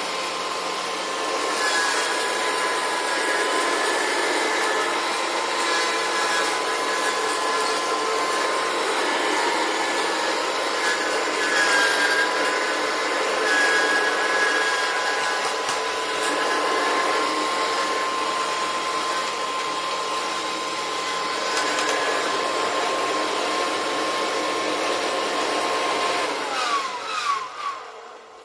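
Kirby upright vacuum cleaner running steadily with a high motor whine, then switched off near the end, its motor spinning down with a falling whine.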